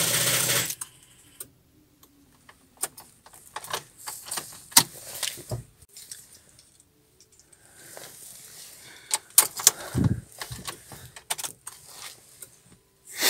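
Car keys jangling and irregular clicking as the ignition key is worked in a cold car whose engine will not start, with no steady cranking heard: the homemade 18650 booster alone cannot supply enough current to turn the starter. A short rustling clatter at the start and a dull thud about ten seconds in.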